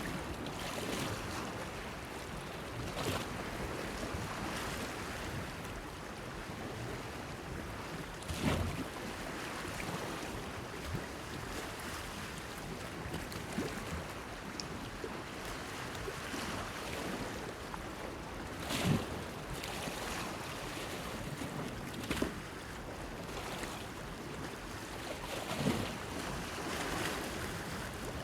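Small waves lapping against a pier, a steady wash of water with a few sharper splashes, the loudest about 19 seconds in, and some wind.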